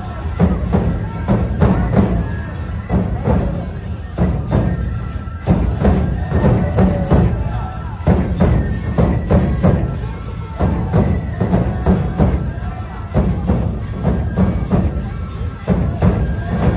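Nebuta bayashi festival music played live: large taiko drums beating a steady driving rhythm, with bamboo flutes playing a repeating melody over them and hand cymbals (tebiragane) clashing.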